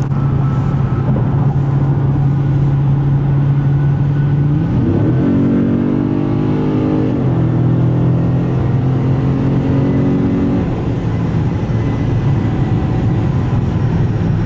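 Stock Dodge Challenger Scat Pack's 6.4-litre HEMI V8 on its factory exhaust, running steadily at cruise. About five seconds in the engine note jumps up as the car accelerates, holds for a couple of seconds, then drops back as it shifts, settling lower again near the end.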